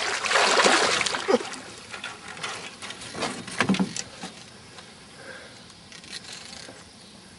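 Water splashing and trickling as a hooked alligator gar is brought alongside the boat, loudest in the first second or so and then dying away.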